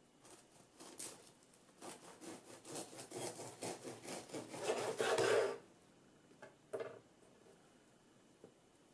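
Knife sawing back and forth through the crust of a bread-maker loaf on a wooden cutting board, about four strokes a second and growing louder, the last strokes loudest and stopping about five and a half seconds in. Two soft knocks follow as the cut loaf is handled.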